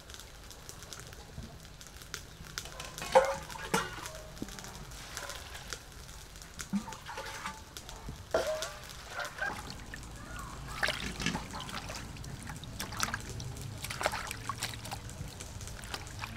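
Water sloshing and trickling as leafy greens are washed by hand in an aluminium basin. Scattered knocks and brief rings of metal bowls and a colander striking the basin come through, loudest a few seconds in and again about eight seconds in.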